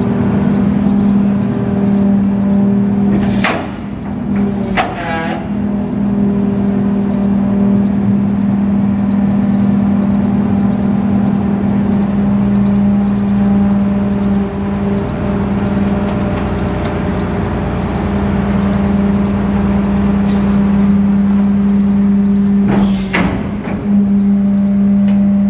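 Rear-loader garbage truck's engine and hydraulic system running steadily with a pitched drone while the packer panel cycles through the hopper. Three short sharp sounds break through, two a few seconds in and one near the end.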